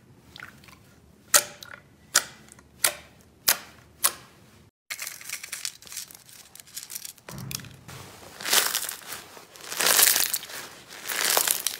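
Clear slime pressed by hand, giving five sharp pops about one every two-thirds of a second as trapped air bursts. Then crunchy bead-filled slime is squeezed between the hands, crackling densely in swells that grow louder with each squeeze.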